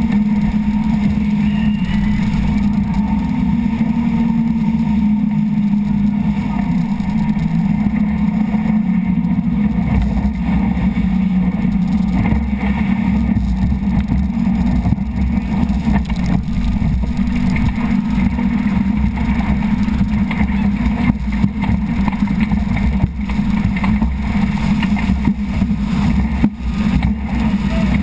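Rigid inflatable boat running fast over the sea: a steady engine drone under loud rushing wind and water noise, with a few sharp knocks in the second half as the hull meets the waves.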